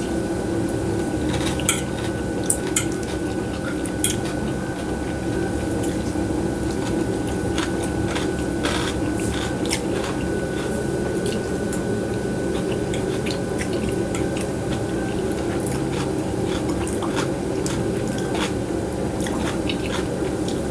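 A steady low hum with scattered short clicks and taps throughout, sharpest about two and four seconds in.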